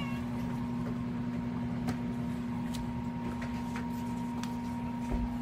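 A steady electrical hum held at one pitch, with a few faint, short clicks scattered through it.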